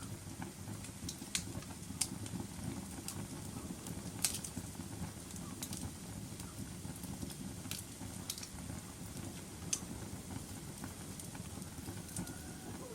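Wood fire crackling: a steady low rumble of burning, with sharp, irregular pops from the wood, about eight of them, the loudest a little over four seconds in.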